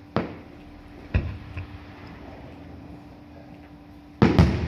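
Aerial firework shells bursting: two sharp bangs about a second apart, then a louder double bang near the end with a rumbling tail.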